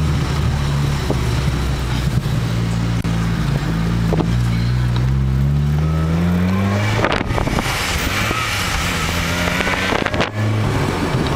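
Ford Focus engine pulling away under load, its revs climbing steadily for about seven seconds, then falling at a gear change. After that, broad road noise takes over, with a brief drop in sound near the end.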